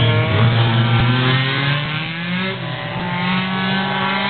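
Several race car engines running at once, overlapping; one climbs in pitch about halfway through as it accelerates, then holds steady.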